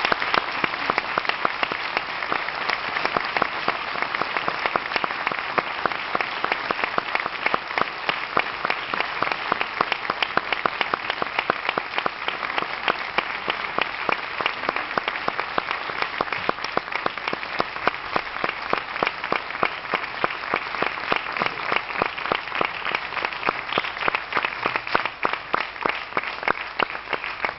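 A theatre audience applauding: sustained, dense clapping from many hands.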